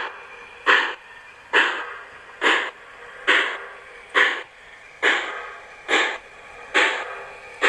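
Sound system of an HO-scale MTH 4-6-4 Hudson steam locomotive model giving slow, evenly spaced steam exhaust chuffs, about one a second, through the model's small speaker, as for a locomotive moving at a crawl.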